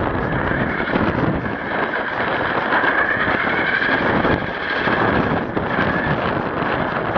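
1/10-scale HSP RC monster truck driving, heard from a camera on its chassis: a steady running noise with a whine that rises and falls with the throttle, dipping briefly a little past the middle.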